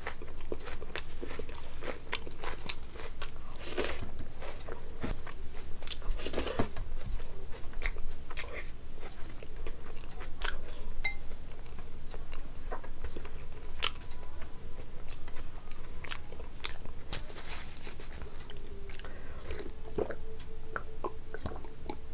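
Close-miked chewing and biting of a mouthful of food, with irregular wet mouth clicks and crunches throughout.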